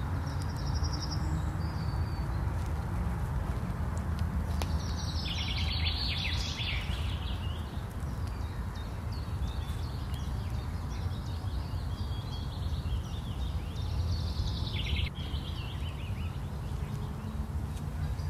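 Songbirds singing in the woods: three short bursts of quick repeated high notes, about half a second in, around five seconds in and near fifteen seconds, over a steady low background rumble.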